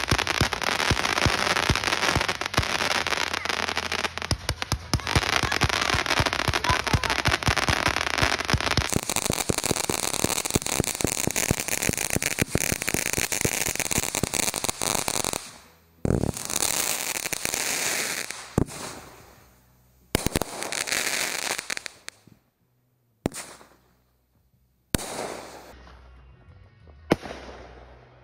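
Consumer firework cakes firing: rapid volleys of launch pops and crackling stars for about fifteen seconds, then shorter bursts that cut off abruptly between near-silent gaps.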